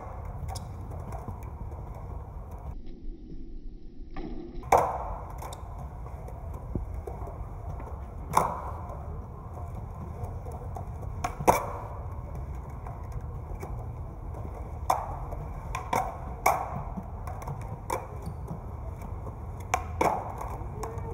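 Skateboard wheels rolling over a smooth stone floor in a steady rumble, with a sharp clack of the board popping or landing every few seconds, about six in all.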